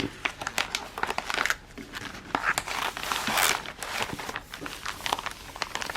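Craft kit packaging crinkling and rustling as it is handled, with a scatter of irregular crackles and a couple of longer rustles.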